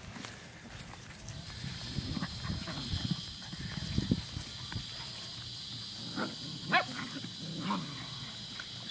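German Shorthaired Pointer puppies growling and grunting in a tug-of-war over a toy, with a few short, higher yips about six to eight seconds in.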